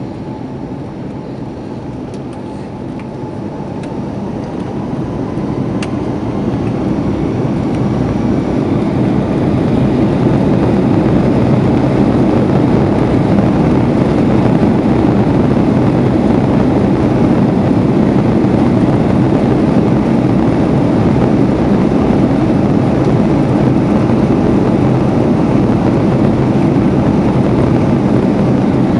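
Jet engines of an Airbus A330-300 heard from inside the passenger cabin, spooling up to high thrust: the deep cabin noise and rumble swell over several seconds, then hold steady and loud.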